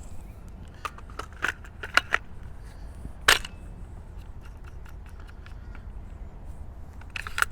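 Clicks and snaps of a GFS 1000 concrete nail gun's magazine and barrel parts being handled while it is checked for a pin jam: a few sharp clicks, one louder snap about three seconds in, then a quick run of clicks near the end.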